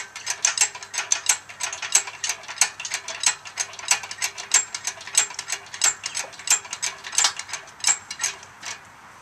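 Rapid ratchet clicking from a hand-worked engine hoist as its handle is pumped to lift an outboard motor, several clicks a second in uneven runs, stopping shortly before the end.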